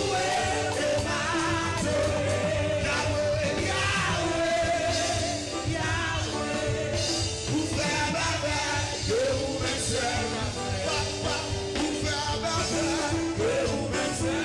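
Live worship music: a man sings a Haitian Creole worship song into a handheld microphone over a full band.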